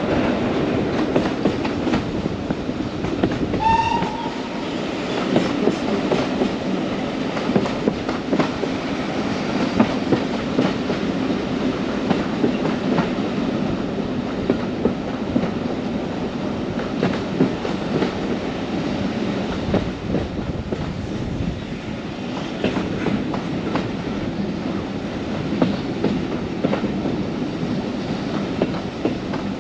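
Heritage railway train running along the track: a steady rumble with the clickety-clack of wheels over rail joints. A short whistle sounds about four seconds in.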